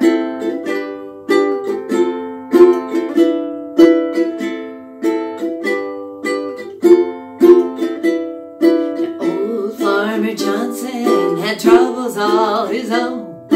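Ukulele strummed in a steady rhythm through the song's chord progression of A minor, G, F and E7 as an instrumental intro. A woman's voice starts singing along about ten seconds in.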